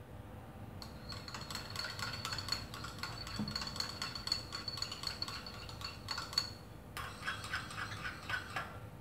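Chopsticks stirring rapidly in a small ceramic bowl, mixing red syrup into a milky gelatin mixture: a fast run of clinks against the bowl, which rings faintly. The stirring stops for a moment about six and a half seconds in, then goes on for about two seconds more.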